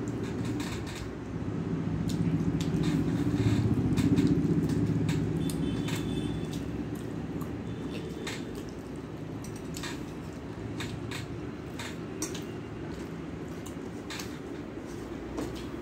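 Hand-eating sounds: fingers mixing rice and curry on a steel plate, with short clicks and smacks of chewing, over a low rumble that swells for a few seconds near the start and then eases off.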